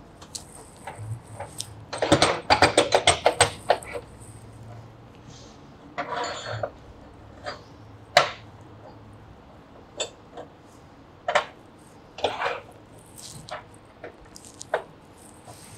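Steel pieces being handled on a steel welding table: square bar stock and a bar clamp set down and knocked into place. A fast run of rattling clicks about two seconds in, then scattered single clanks and knocks.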